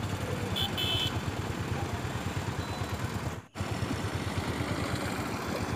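Motorcycle engine idling at a standstill: a steady, low, even beat. Two short high beeps sound about a second in, and the sound cuts out briefly about three and a half seconds in.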